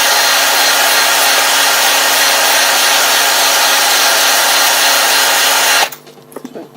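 Electric drill spinning an engine stud while a wire brush scrubs rust and dirt off its thread, a loud steady whirring and scratching that stops suddenly about six seconds in.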